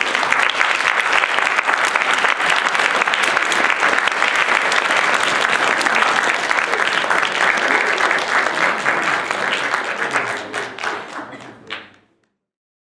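Audience applauding: a dense, steady round of clapping that thins out over the last couple of seconds and then cuts off suddenly.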